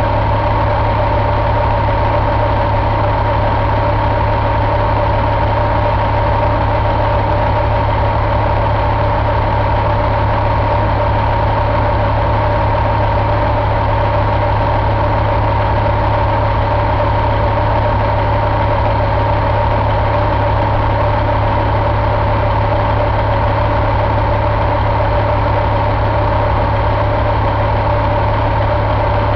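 Caterpillar 3406E 14.6-litre inline-six diesel idling steadily, with a steady whine over the engine note.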